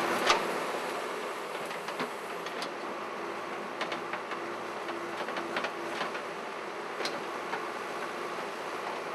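JCB backhoe loader's diesel engine running steadily while it digs, with scattered knocks and clanks of the bucket and falling earth. A sharp knock comes just after the start.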